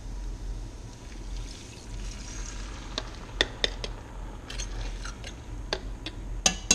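A thin stock-and-starch slurry poured from a plastic measuring cup into a hot cast-iron skillet, then a metal fork tapping and scraping against the cup and the pan to get the last of it out. The taps start about halfway through and come in a quick run near the end.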